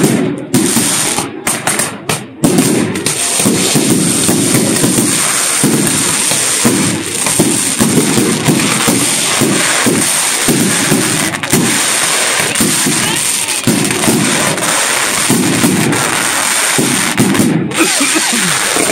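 Fireworks going off in a dense barrage: continuous crackling and popping of bursting shells and rockets. A few separate sharp bangs come with short lulls in the first couple of seconds, then the crackle runs almost without a break.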